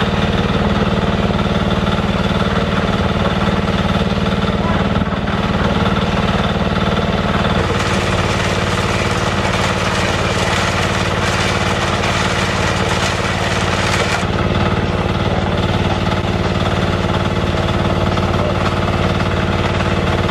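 Concrete mixer's small red stationary engine running steadily under load, turning the drum. A rushing noise joins for several seconds in the middle.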